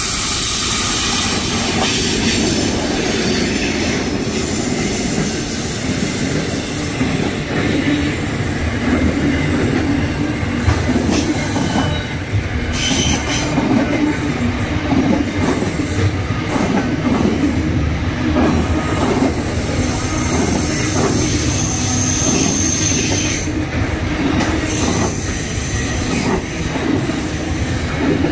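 Container freight train passing close by: a steady rumble of wheels on rail with repeated clacks from the wheels. Thin, high wheel squeals sound now and then as it takes the curve.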